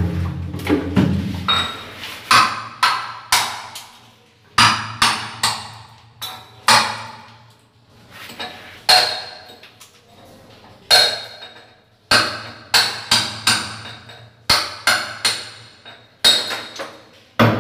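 Sharp hammer blows on a chisel against a ceramic-tiled wall, chipping around the water pipe fitting. The strikes come in quick bursts of three or four with short pauses between.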